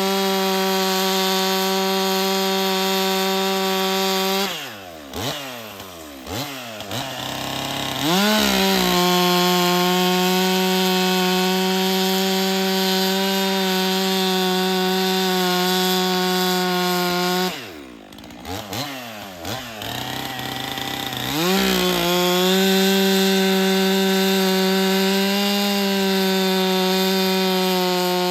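Stihl MS 400 two-stroke chainsaw held at full throttle cutting logs, a steady high engine note. Twice the throttle is let off: the pitch falls away, then climbs back to full revs.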